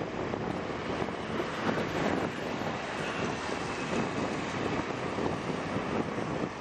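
Steady rushing wind on the microphone of a camera riding on a moving motorbike, with vehicle engine and road noise underneath.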